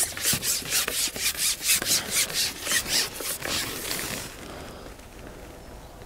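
Quick, even rubbing or scraping strokes, several a second, that fade out about four seconds in.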